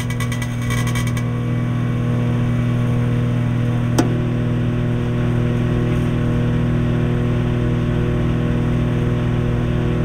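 1000-watt microwave oven running: a steady electrical hum, with a fine high buzz that stops about a second in and a single sharp click about four seconds in.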